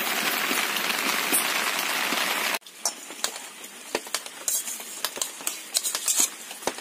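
Heavy rain falling on a roof, a dense steady hiss, which cuts off abruptly about two and a half seconds in. After it comes a quieter stretch of scattered small clicks and taps from a spoon serving curry out of a steel bowl.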